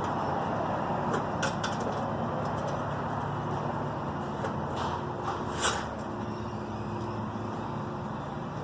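Short metallic clicks and clinks of a recessed downlight's reflector being worked loose from its housing, the loudest about five and a half seconds in, over a steady background hum.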